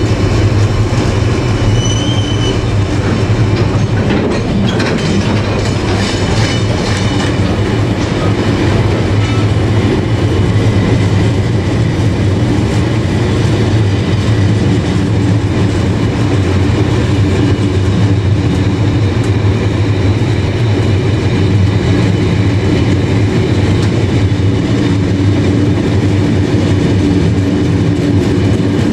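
A long freight train of covered hopper wagons rolling steadily past at close range, its wheels rumbling and clattering over the rail joints. A brief high wheel squeal comes about two seconds in.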